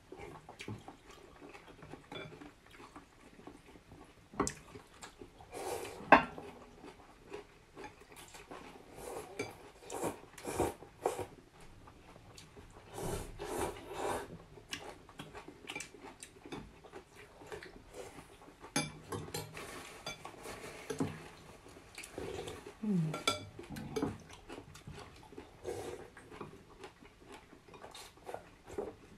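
Chopsticks and spoons clinking and tapping against glass bowls as two people eat noodle soup, with noodles being slurped about halfway through.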